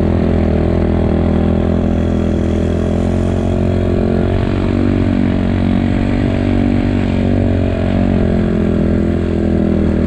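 A 250 cc enduro motorcycle engine running at a fairly steady speed while the bike rides along a snowy track.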